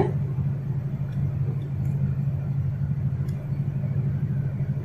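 Milk sweetened with date-palm jaggery at a rolling boil in a pan, a steady low rumble with faint bubbling over it; two faint clicks about two and three seconds in.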